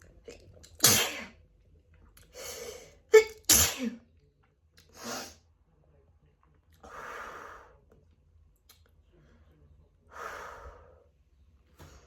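A person sneezing: a sharp sneeze about a second in, then a louder double sneeze a couple of seconds later, allergy sneezes. Slow, heavy breaths follow a few seconds apart.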